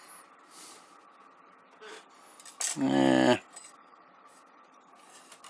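A lock pick working in the keyway of an ABUS 83/45 padlock under light tension: faint metallic scraping and small clicks. About three seconds in there is a short, louder vocal sound from the picker.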